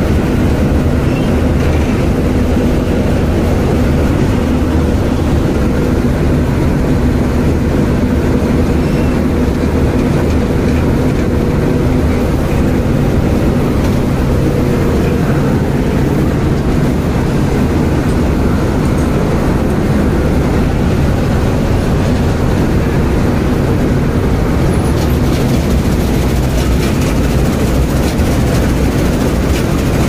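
Combine harvester running steadily while harvesting, heard from on board: a loud, even drone of its engine and threshing machinery with a steady low hum.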